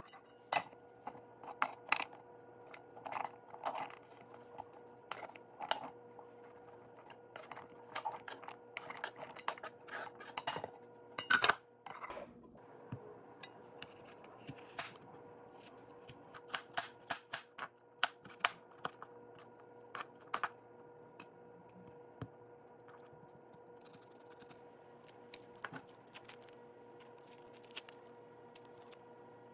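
Chopped vegetables tipped off a wooden cutting board into a pot, a busy run of knocks and clatters lasting about twelve seconds, the loudest near the end of that run. After it, scattered knife taps on the wooden board as an apple is cut into cubes, over a steady faint kitchen hum.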